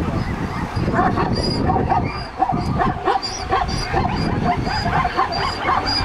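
Zebras calling: many short, repeated barking yelps from several animals, overlapping, over a steady low rush of wind and water.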